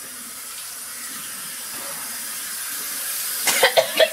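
Kitchen faucet running steadily into a sink, growing slightly louder, as a person rinses out their mouth under it. Near the end come a few short, sharp vocal sounds.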